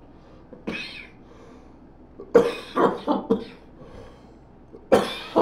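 A man coughing after a hit from a pipe: a single cough about half a second in, a run of four harsh coughs about two seconds in, and another fit starting near the end.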